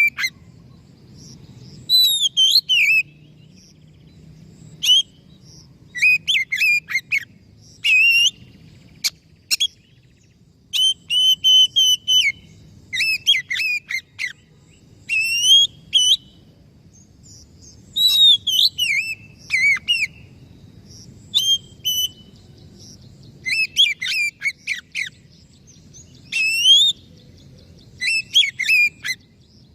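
Oriental magpie-robin (kacer) singing: short bursts of varied, sliding whistled phrases, each up to about a second long, coming every one to two seconds over a faint low hum.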